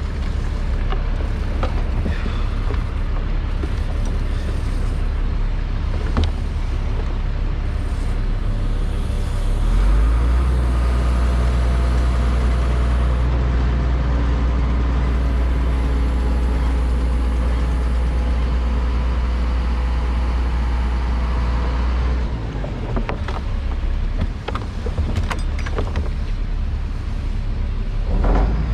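A vehicle engine running steadily. It runs at higher revs from about ten seconds in to about twenty-two seconds, then drops back.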